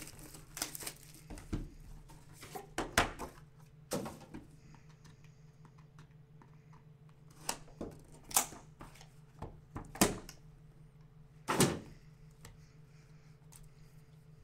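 Cardboard boxes of trading cards being handled and set down on a table: a scatter of about eight knocks and taps, the sharpest near the middle and toward the end, over a faint steady hum.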